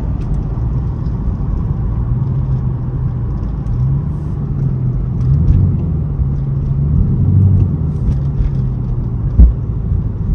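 Tuned Chevrolet Camaro SS V8 heard from inside the cabin while driving: a steady low engine and road rumble whose pitch shifts a little, with a single thump about nine seconds in.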